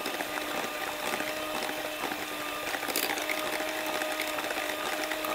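Electric hand mixer running steadily at one speed, its beaters whipping a runny egg-and-sugar batter in a glass bowl.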